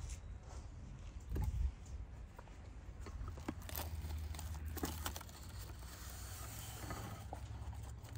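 Light handling noises: scattered soft clicks, scrapes and rustles over a low steady rumble.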